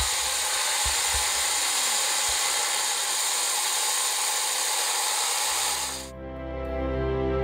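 Angle grinder cutting a stone paving slab, a steady high grinding that stops abruptly about six seconds in. It gives way to music with brass horns.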